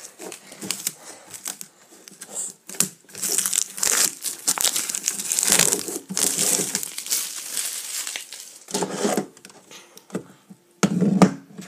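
Plastic shrink-wrap being torn and crinkled off a metal trading-card tin, in irregular bursts of rustling. Near the end comes a duller, lower burst of handling noise.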